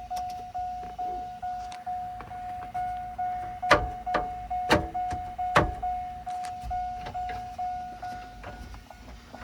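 Door chime of a 2003–2006 GM truck dinging over and over, about two tones a second, sounding with the key on; it sounds ridiculous with the aftermarket steering wheel control box installed. Three sharp knocks come near the middle.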